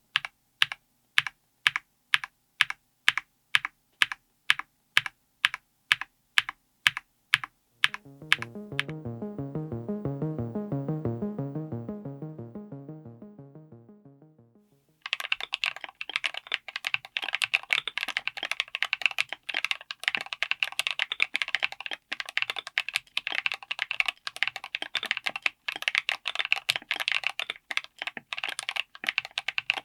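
Mechanical keyboard with Gateron Smoothie Banana full-POM tactile switches: single keystrokes at an even pace of about two a second, then a short musical interlude of low chiming notes that swells and fades away, then fast continuous typing through the second half.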